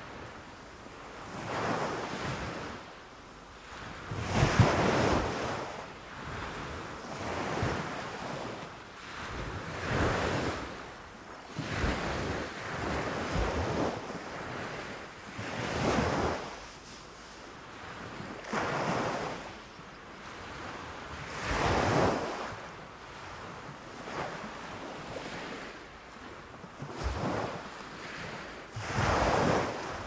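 Small waves breaking on a sandy beach and foamy water washing up the shore, a fresh surge of surf noise every two to three seconds.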